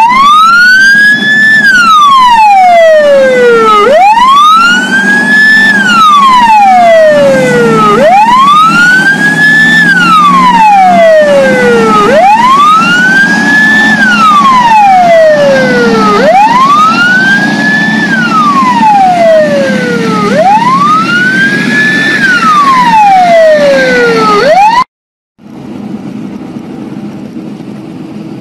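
Police car siren wailing, sweeping up and then gliding down in pitch about once every four seconds. It cuts off abruptly about 25 seconds in, leaving a quieter steady vehicle rumble.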